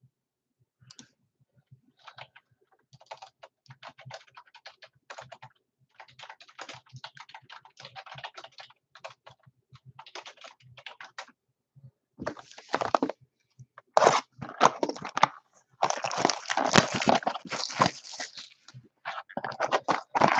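Scattered light clicks and taps. From about twelve seconds in, louder crinkling and tearing as the packaging of a Panini Select trading-card box is pulled open and the box is handled.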